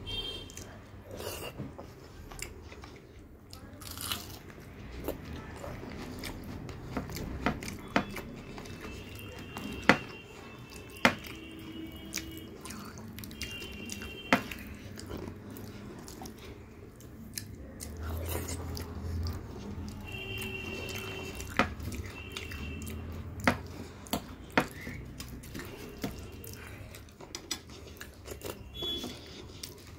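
Hand-eating sounds of rice and chicken curry: fingers working wet rice on a plate, chewing and lip smacks, with many scattered sharp clicks.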